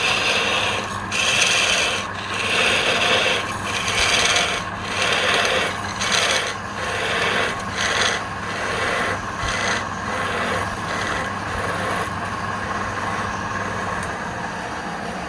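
Rhythmic abrasive rubbing on wood, stroke after stroke at about one to two a second, fading out after about twelve seconds, over a steady low hum.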